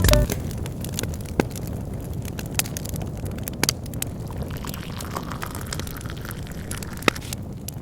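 Outdoor wood fire burning with a low steady rumble and a few sharp crackling pops.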